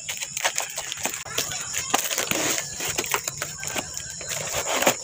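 Brown paper and cardboard packaging being torn and crinkled open by hand: a dense, irregular run of rustles, crackles and small tears.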